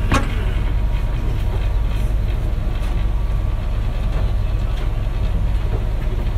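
Steady low drone of a ferry's engine machinery, heard inside the crowded passenger cabin, with a brief knock right at the start.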